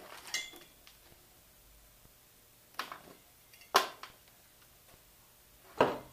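Four sharp clicks and knocks of hands working loose parts inside an open desktop PC tower's metal case, spaced a second or two apart, the loudest near the end.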